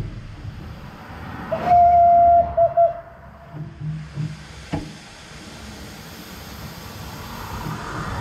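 Steam whistle of a small narrow-gauge 0-6-0WT tank locomotive: one long blast followed by two short toots, over the low running of the engine and the wheels on the rails, with a couple of sharp knocks. Near the end a car passes on the adjacent road.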